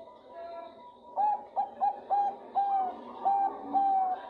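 Bangkok-strain zebra dove (perkutut) cooing: a quick run of about nine short, clear notes starting about a second in, the later notes drawn out longer. The uploader presents it as a female calling to a male.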